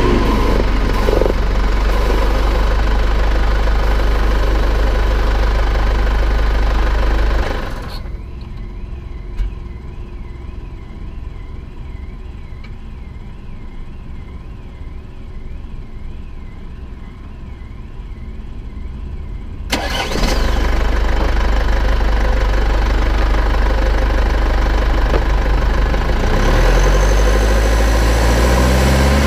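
Road, tyre and wind rush recorded inside the front wheel well of a moving Infiniti Q50, with a strong low rumble. About a quarter of the way in the rush drops sharply, leaving a faint high warble that rises and falls about twice a second. Around two-thirds of the way through it comes back loud, with a rising engine note near the end.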